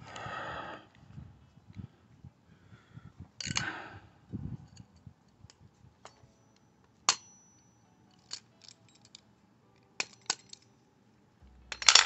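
Scattered sharp metallic clicks and taps of a screwdriver against a small steel part as it is driven into a hydraulic roof-lock cylinder piece by hand, with a little handling rustle early on and a louder cluster of clicks near the end.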